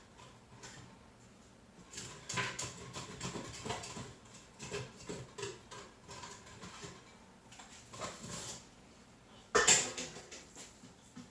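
Kitchen utensil scraping and knocking against a pot as the last of the cooked rice is scooped out, with a louder clatter a little before the end.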